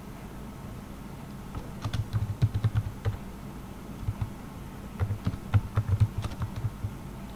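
Typing on a computer keyboard: two runs of quick keystrokes, the first about two seconds in and the second about five seconds in, over a steady low hum.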